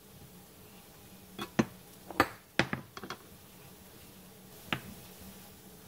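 Chef's knife tapping on a bamboo cutting board while dicing tomatoes: a handful of irregular sharp knocks in the first three seconds, with one more about a second before the end.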